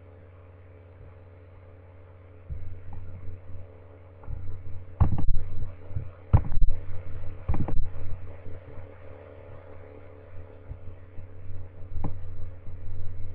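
A person chewing a Kit Kat Chunky Caramel bar close to the microphone: irregular low thuds of the jaw working, starting a couple of seconds in, with a few sharper crackles of wafer or foil wrapper in the middle. A steady low hum runs underneath.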